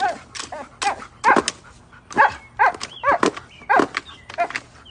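A dog barking in a rapid, steady series of short barks, about two a second, each with a brief rise and fall in pitch.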